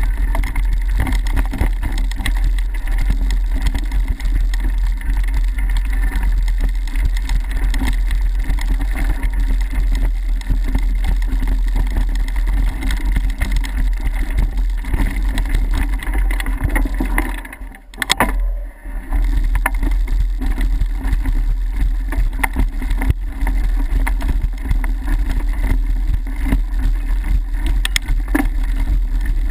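Mountain bike riding a rough dirt and gravel trail, heard through the camera mounted on it: a steady rumble and rattle of tyres and vibration over the ground, mixed with wind on the microphone. It drops away briefly about two-thirds of the way through.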